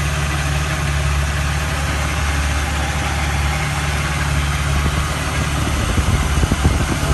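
BMW E36 engine idling, heard close up in the engine bay: a steady low hum with a loud hiss over it, turning uneven with some low thumps in the last couple of seconds.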